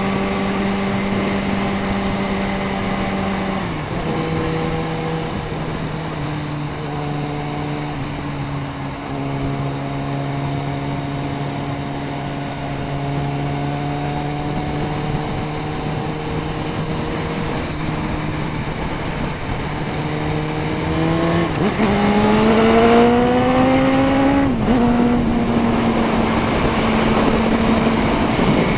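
Suzuki Bandit 650N inline-four engine running under way, with wind rushing past. The engine note falls about four seconds in and holds steady, then climbs sharply as the bike accelerates a little past twenty seconds, drops at a gear change a few seconds later and settles into a steady cruise.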